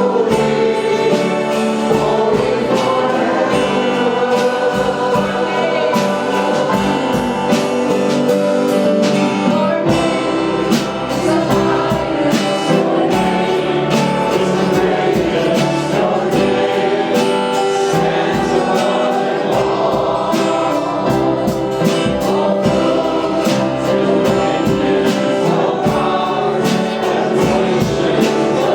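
Gospel-style worship music: a choir or group of voices singing over instrumental accompaniment with a steady beat.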